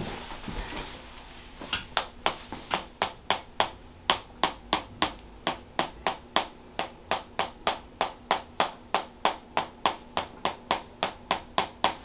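Small mallet tapping a metal chiropractic adjusting instrument held against the back of the neck: rapid, even, sharp taps at about three to four a second, starting about two seconds in.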